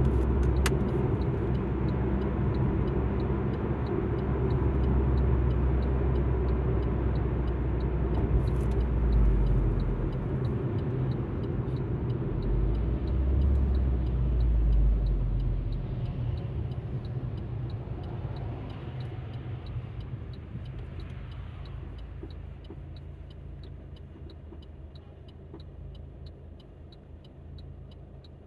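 Inside an Alfa Romeo MiTo's cabin: engine and road noise that die away over the second half as the car slows. Throughout, a faint even ticking at about one and a half ticks a second, like the turn indicator.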